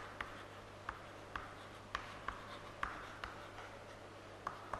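Chalk writing on a chalkboard: irregular sharp taps and short scratches as letters are formed, about two or three strokes a second.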